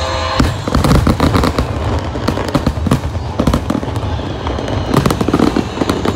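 Aerial fireworks display: a rapid barrage of shell bursts with many sharp, overlapping bangs and crackles, starting about half a second in.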